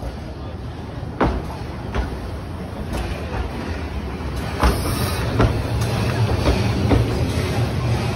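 Narrow-gauge steam train on the Talyllyn Railway running, with irregular sharp clanks and clicks over a low rumble that grows louder about four and a half seconds in.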